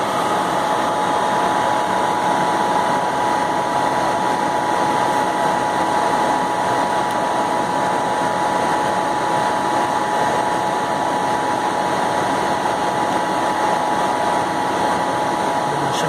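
Suburban SF-30 RV furnace blower running steadily with an even whine, powered up on the bench during the pre-purge before the ignitor board tries to fire.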